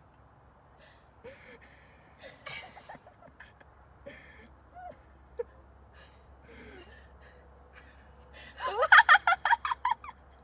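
Faint scattered vocal sounds, then a burst of loud, high-pitched laughter in quick pulses starting about eight and a half seconds in.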